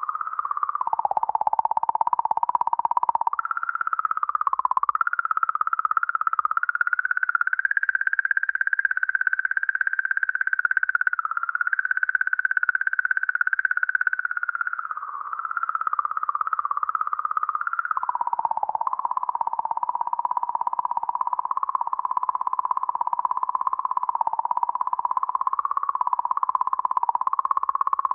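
The 'singing comet' of comet 67P/Churyumov–Gerasimenko: oscillations in the magnetic field around the comet, measured by the Rosetta spacecraft and sped up into hearing range. It is a wavering, warbling whistle-like tone that jumps higher a few seconds in and drops back down about two-thirds of the way through.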